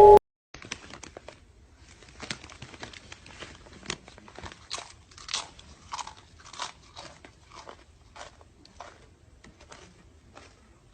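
Music cut off abruptly at the very start, followed by irregular close crunching and clicking noises, several a second, uneven in loudness.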